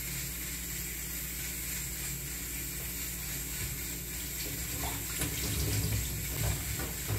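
Kitchen tap running into the sink. There are a few light knocks and splashes in the last two seconds as something is handled under the stream.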